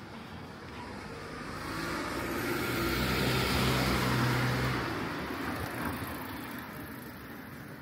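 A car passes close by. Its engine and tyre noise swells to a peak about four seconds in, then fades away.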